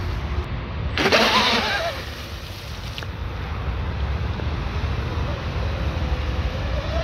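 The twin brushless motors of an electric RC mono boat whine at speed. There is a sudden loud burst about a second in, its pitch falling as the boat passes, then a steadier whine that rises in pitch near the end. Wind rumbles on the microphone.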